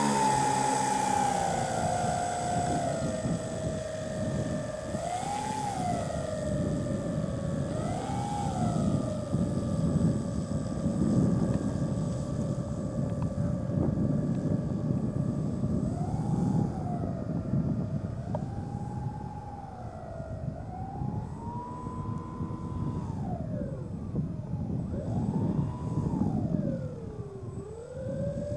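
Twin motors of a radio-controlled scale model de Havilland DH.88 Comet running on the ground, a steady whine that is throttled up and back down about seven times, the pitch rising and falling with each burst.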